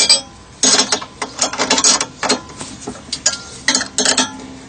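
Ratchet wrench clicking in a series of short bursts as it tightens the nuts that clamp a chainsaw bar into a Panther Mill 2 chainsaw mill.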